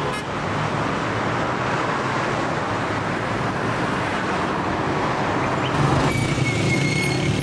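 Dense city traffic: a steady wash of car engines and tyre noise. About six seconds in it gives way to a closer, even engine hum of a motorcycle being ridden, with a thin high tone for about a second.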